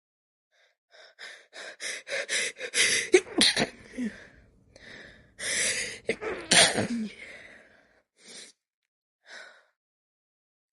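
A woman's sneezing fit: quick gasping in-breaths that build up, then stifled, wet sneezes held back, in two bouts about three seconds apart, followed by a couple of short breaths.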